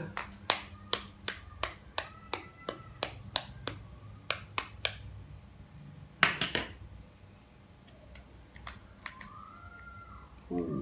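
Metal fork tapping the shell of a half-boiled egg to crack it: about a dozen sharp taps, roughly three a second, then a louder clatter about six seconds in as the fork is set down on the wooden board, followed by a few faint clicks of the shell being picked open by hand.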